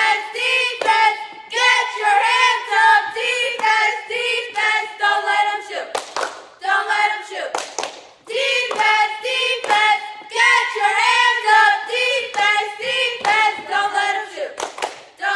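Group of cheerleaders chanting a defense cheer in unison ("Defense, defense, get your hands up, defense, defense, don't let 'em shoot"), punctuated by sharp hand claps. The chant runs through twice, with a short break about six seconds in.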